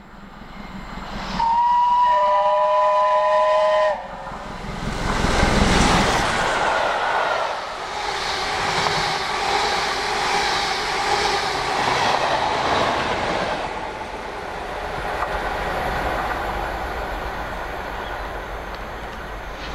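BR Standard Class 7 steam locomotive 70000 Britannia sounds its whistle, a two-note blast lasting about two and a half seconds, then runs through at speed with its train. The noise of the locomotive and coaches swells sharply just after the whistle, holds as a steady rumble with wheels on rails, and slowly eases off as the train draws away.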